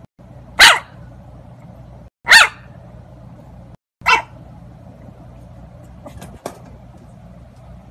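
Bulldog puppy giving three short barks about a second and a half apart, each dropping in pitch. Two faint clicks follow near the end.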